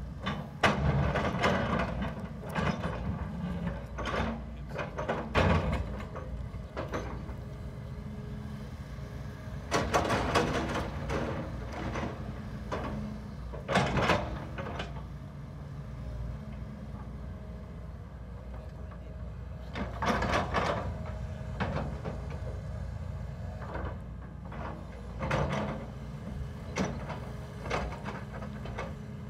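Tracked excavator's diesel engine running steadily under load while its steel bucket scrapes and drags across dirt and brush, with louder bursts of scraping and clanking every few seconds.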